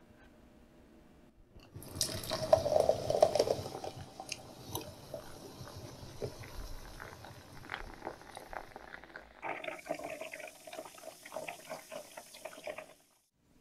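Chilsung Cider lemon-lime soda poured from a can into a glass: a loud gushing pour starts about two seconds in and lasts about two seconds, then the carbonation fizzes and crackles with many small popping bubbles, stopping abruptly shortly before the end.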